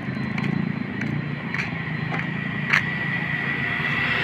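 Roadside traffic: a nearby motor vehicle engine running, with a steady high tone and a few light clicks over it, growing slightly louder near the end.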